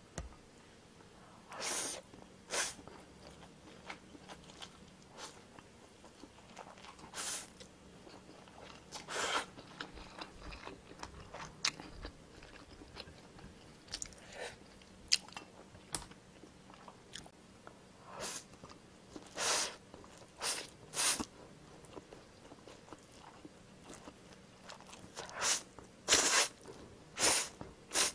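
Close-miked eating sounds: Indomie Mi Goreng stir-fried instant noodles drawn into the mouth off chopsticks and chewed, in short irregular bursts a few seconds apart, coming more often near the end.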